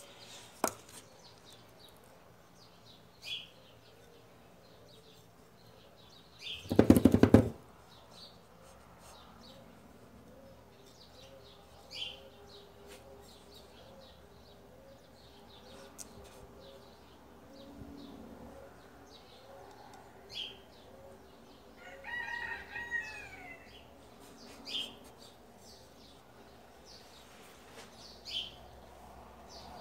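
Birds chirping now and then, short high calls every few seconds, with a brief loud noise about seven seconds in.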